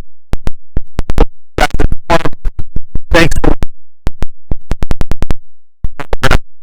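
Electronic music with record-scratch effects and sharp, rhythmic percussive hits.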